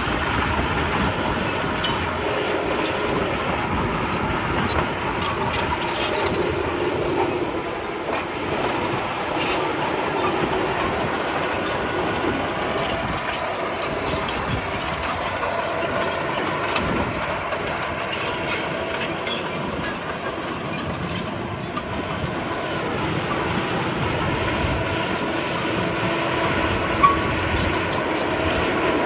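Komatsu D31P crawler bulldozer running steadily, its diesel engine droning while the steel tracks clank and rattle, with one sharp knock near the end.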